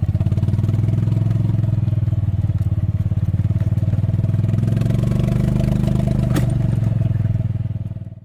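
An engine running steadily with a fast, low pulsing, which stops abruptly near the end.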